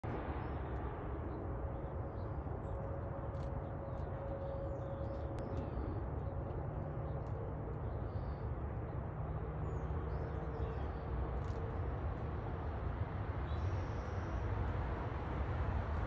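Steady low outdoor background rumble, like distant traffic, with a few faint high chirps.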